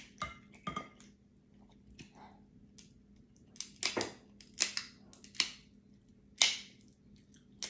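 Cooked crab leg shells cracked and snapped apart by hand: a string of sharp cracks, several bunched between about three and a half and five and a half seconds in, the loudest about six and a half seconds in.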